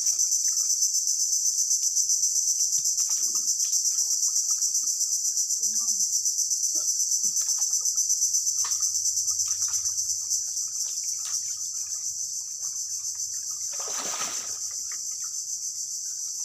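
Shrill, steady insect chorus with a fast regular pulse, growing somewhat quieter in the second half. Scattered light clicks and rustles lie beneath, and there is a short noisy burst near the end.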